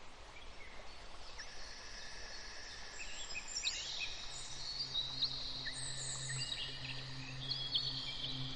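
Nature soundscape of many birds chirping, with short quick calls and downward-sweeping notes, over a steady hiss and long high insect-like trills. A low steady hum comes in about three and a half seconds in.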